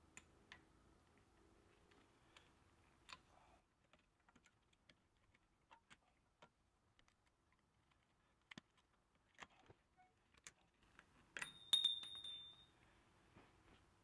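Faint, irregular metallic clicks and ticks of pliers working a cotter pin out of the castellated axle nut on a Jeep Wrangler TJ front wheel hub. A louder, ringing metal clink comes near the end.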